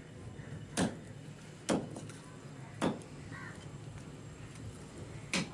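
A large knife chopping goat meat on a wooden block: four sharp chops, the first three about a second apart and the last after a longer pause.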